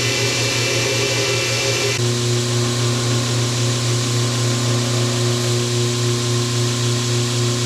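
An electric power tool's motor running steadily with a strong hum; about two seconds in its tone shifts and settles at a new steady pitch.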